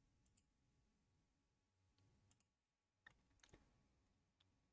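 Near silence with a few faint, short clicks scattered through it, about five in all.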